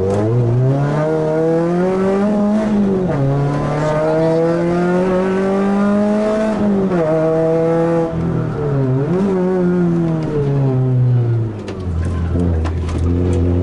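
Renault Clio Sport rally car's engine heard from inside the cabin, revving hard through the gears: the pitch climbs, falls back at an upshift about two and a half seconds in, drops again near seven seconds, dips and flares back around eight to nine seconds, then falls to low revs under braking near the end before climbing again.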